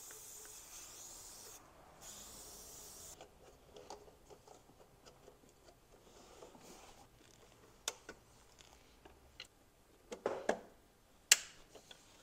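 Gloved hands working rubber breather hoses and plastic fittings onto an engine, with rubbing and scraping of rubber and plastic, two short spray hisses in the first few seconds, and a few sharp clicks of parts snapping or knocking together near the end.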